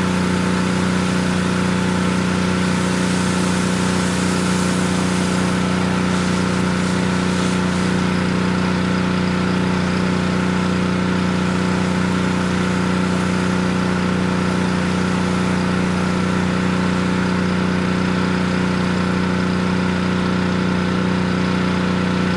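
Gas engine of a pressure washer running at a steady, constant speed, with an even hiss over it.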